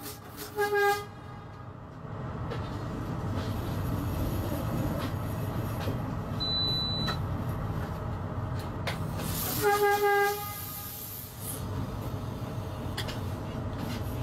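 Train horn sounding: a short blast just under a second in and a longer one of about a second near ten seconds in, warning a dog on the track ahead. The steady low rumble of the train running along the rails continues underneath.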